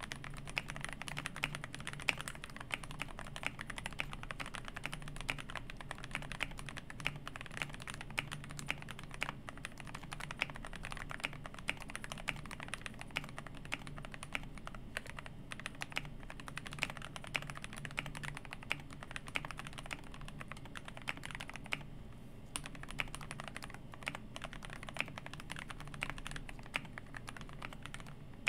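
Fast, continuous typing on a GMMK Pro mechanical keyboard built with a polycarbonate plate, Halu Halo switches and Cherry Taro keycaps: a dense run of keystroke clacks with a muted tone.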